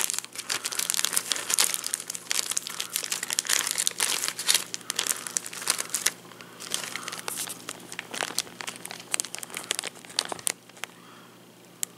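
Clear plastic film lid from a meal tray crinkling as it is handled and held up, with dense irregular crackles. The crinkling dies down about ten and a half seconds in, leaving a faint low hum and a single click near the end.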